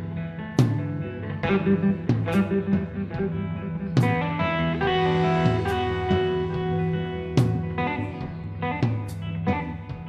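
Live blues-rock from an electric guitar and a drum kit played together: sustained distorted guitar chords, with loud drum-and-cymbal accents roughly every one and a half to two seconds.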